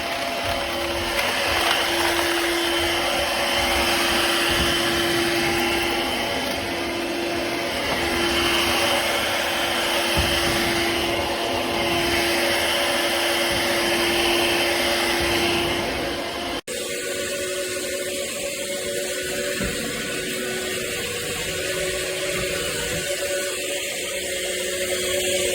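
Shark Navigator Freestyle cordless stick vacuum motor running with a steady whine. It drops out abruptly for an instant about seventeen seconds in, then carries on at a slightly higher pitch.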